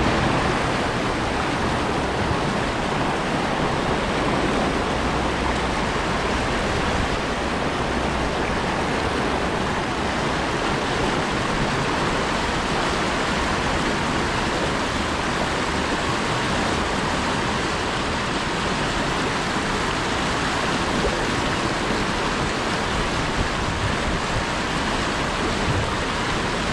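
Steady rush of fast-flowing stream water: an even, unbroken hiss that cuts in suddenly at the start.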